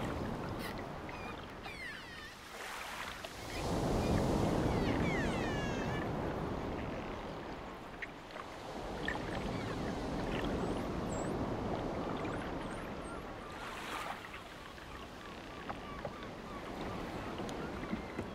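Ocean surf breaking and washing up a sandy beach, rising and falling in long swells, with a few faint high gliding calls over the wash.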